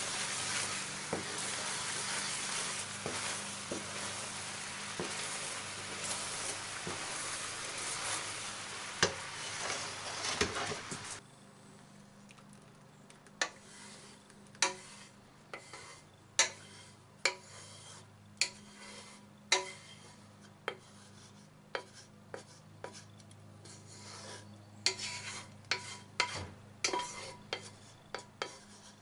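Gochujang sauce boiling in a frying pan with a steady sizzling hiss while a wooden spoon stirs it. The hiss stops abruptly about eleven seconds in, giving way to scattered knocks and scrapes of the wooden spoon against the pan as the sauce is scraped out into a bowl.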